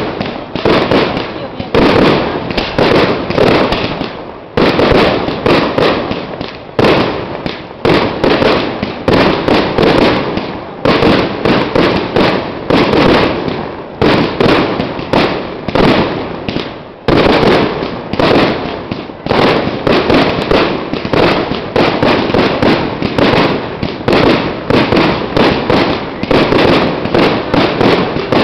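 Aerial fireworks display: a dense, continuous barrage of shell bursts and crackling, many bangs a second, easing only briefly twice.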